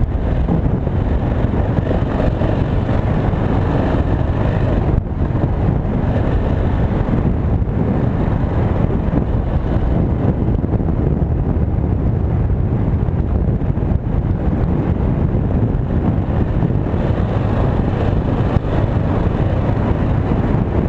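The single-cylinder engine of a KTM 690 Enduro R dirt bike running steadily while riding, mixed with wind rush on the microphone. The sound dips briefly about five seconds in.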